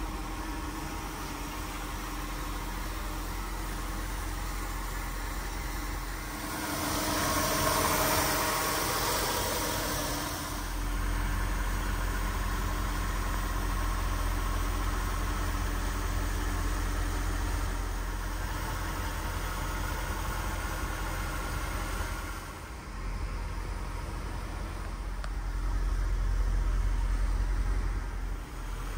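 A Jaguar XK8's V8 engine idling steadily, with a louder rushing stretch about seven seconds in and again near the end.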